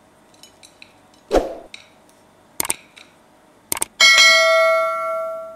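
Subscribe-button sound effect: a thump about a second in, then sharp mouse clicks, then a loud notification-bell ding that rings on and fades near the end.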